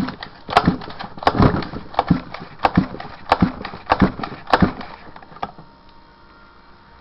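Irregular knocks and clatters, several a second, from a small rod-and-spring linkage mechanism being handled up close; they stop about five and a half seconds in, leaving only a faint steady tone.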